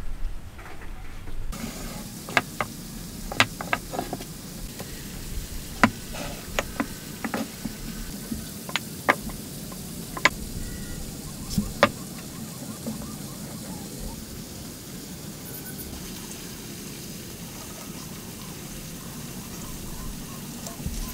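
Wooden pieces knocked and set down on a wooden workbench as they are handled: a scatter of sharp wood knocks over the first half, then only a steady background hiss.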